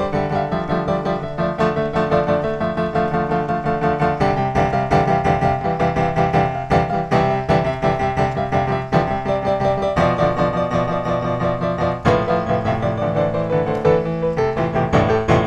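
Background piano music, notes and chords played at a steady pace.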